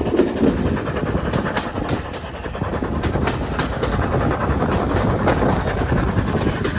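Steam-hauled train behind the LNER A4 Pacific Sir Nigel Gresley running along the line: a steady rushing rumble with the wheels clicking and clattering over the rails.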